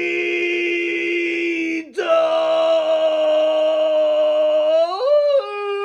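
A man's long, drawn-out shout of "Freedom!", held on one pitch, jumping higher about two seconds in, rising again near the end and then falling away.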